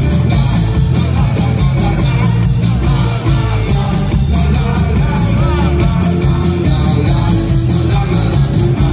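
Live folk-rock band playing loud: strummed acoustic guitar, electric bass and a drum kit keeping a steady beat.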